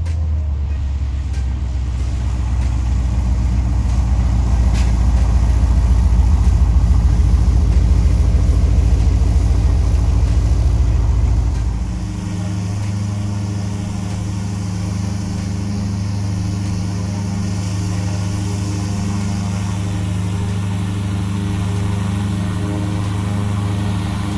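Light bush plane's piston engine and propeller running loudly as the plane passes low over the ground. About halfway through the sound switches abruptly to a steadier, lower engine drone with the plane on the ground.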